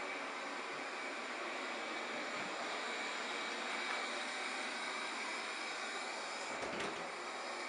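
Robot vacuum running with a steady whir, with a brief knock near the end.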